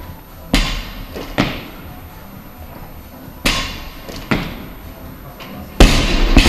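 Barbell with rubber bumper plates knocking on a wooden lifting platform: several lighter thuds as it is lifted and set down, then near the end a loud bang as it is dropped, a quick bounce, and the plates rattling.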